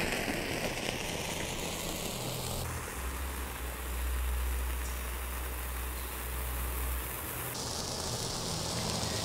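A small red colour-flame firework pot (Explode 'Bunte Flamme') burning with a steady hiss. A low rumble comes in under it a few seconds in and fades out again near the end.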